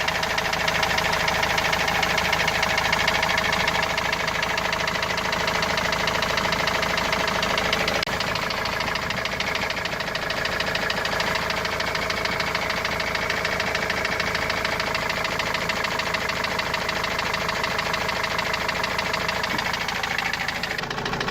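Opel van's turbo diesel engine idling with a rapid, steady knock, like a hammer, whose source the owner cannot find; the engine is blowing pressure out and throwing oil at the dipstick tube.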